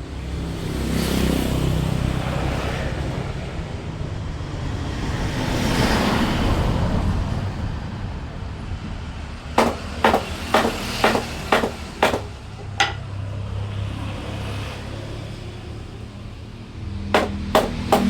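Hammer blows on wood: a quick run of about seven sharp knocks, then three more near the end. Before them, the noise of passing road traffic swells and fades twice.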